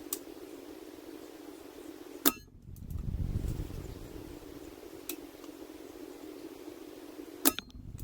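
Two shots from a Hatsan Mod 25 break-barrel spring-piston air pistol, about five seconds apart, each a single sharp crack. Fainter clicks fall between them, over a steady low hum.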